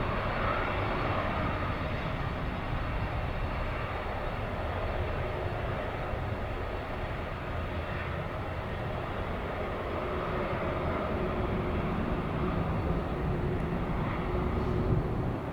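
Jet engines of a KLM Airbus A330-200 running at power during its departure: a steady, heavy rumble with a faint whine.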